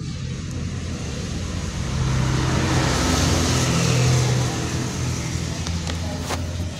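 A motor vehicle's engine drone that swells to a peak about four seconds in and then eases off, with a single sharp click near the end.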